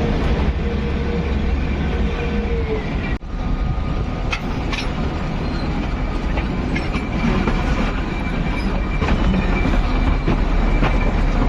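Kalka–Shimla narrow-gauge toy train running into Shimla station, heard from on board: a steady rumble of wheels on the rails with scattered clicks and a thin high wheel squeal. The sound drops out briefly about three seconds in.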